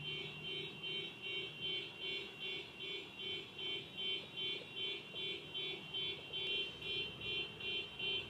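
Car alarm going off: an electronic beeping repeated evenly at about three beeps a second.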